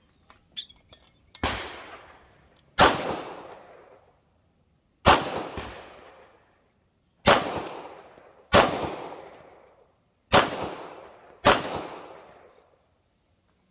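A 9mm pistol fired seven times at an uneven pace, shots one to two seconds apart with two quicker pairs, each sharp report trailing off in an echo over about a second.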